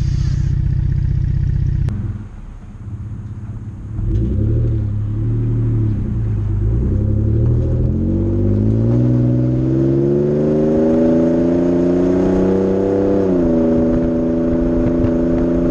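2017 Ford Raptor's 3.5-litre twin-turbo EcoBoost V6 running through a Magnaflow muffler, recorded close to the exhaust. A deep, steady rumble is heard while the truck stands still. After about two seconds it drops away, then the truck pulls off and the engine pitch climbs steadily through a long acceleration, falls sharply at an upshift a few seconds before the end, and settles into a steady cruise.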